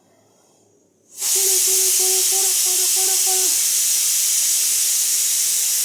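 A loud, steady hiss starts suddenly about a second in and keeps going. Over it, a voice holds one steady note for about two seconds.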